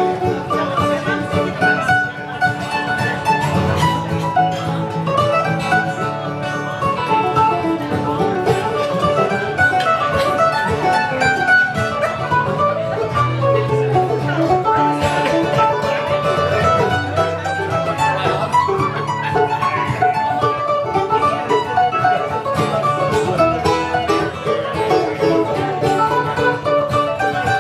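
Live acoustic bluegrass trio playing an instrumental passage: a banjo picking quick notes over acoustic guitar and mandolin.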